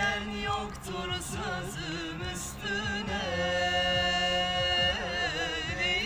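A song with a singing voice, one long wavering note held through the middle.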